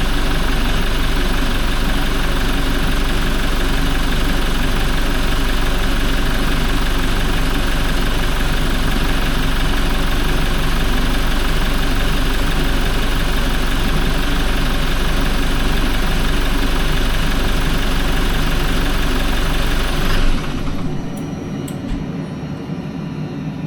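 Toyota 1GD-FTV four-cylinder turbodiesel idling steadily. About 20 seconds in the sound drops abruptly to a quieter, duller steady noise.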